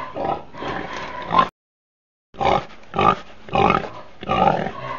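Pigs grunting and oinking, a short recording played as a looping ringtone: the run of grunts cuts off about a second and a half in, leaves a brief gap of dead silence, then the same run of oinks starts over.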